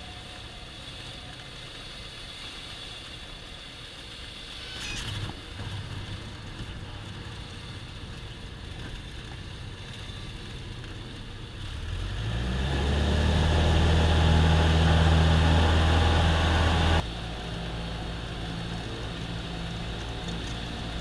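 Cessna 172M's four-cylinder Lycoming O-320 engine, heard inside the cabin. It runs at low power, then about twelve seconds in the throttle is opened and the engine climbs to a loud, steady full-power note. Near the end the sound drops abruptly to a quieter, steady cruise-power hum.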